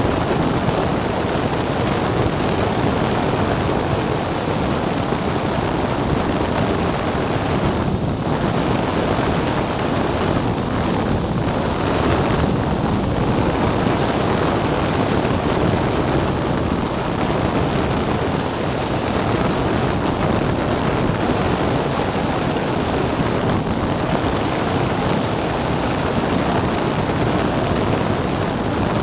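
Steady in-flight noise of a Cessna 177 light aircraft: engine, propeller and rushing air blended into a dense, even rush of sound with no breaks.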